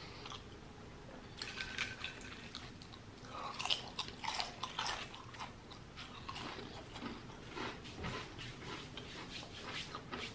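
Close-up mouth sounds of a man chewing a cheesesteak: irregular soft smacks and wet clicks as he chews, strongest in the first half.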